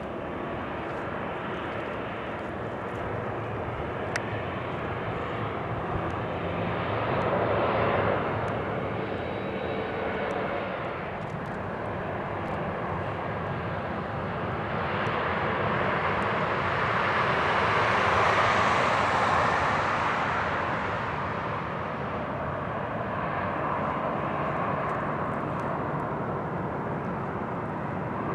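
Jet airliner engines running as an aircraft taxis by, a continuous engine noise that swells to its loudest about two-thirds of the way through and then eases off.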